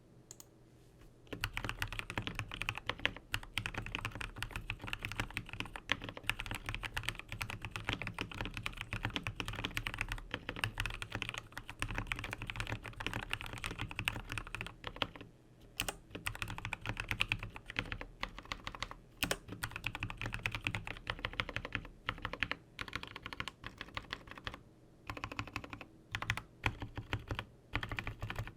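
Continuous typing on a DZ65 custom mechanical keyboard with lubed and filmed milky-top Gateron Black linear switches, DSA keycaps, an aluminium plate and a foam-dampened plastic case: dense keystroke clacks starting about a second in, with a few short pauses. The owner finds the milky top housings make the switches a little scratchier.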